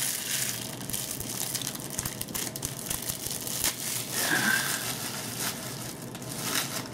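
Plastic shrink-wrap being torn and peeled off a Blu-ray case, crinkling and crackling steadily.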